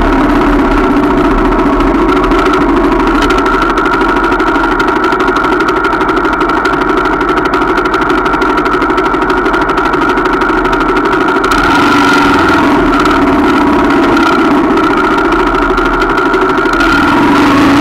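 Small 125 cc motorcycle engine idling steadily, heard close up from the bike itself. Near the end the engines of other trail bikes pulling up join in and the sound grows a little louder.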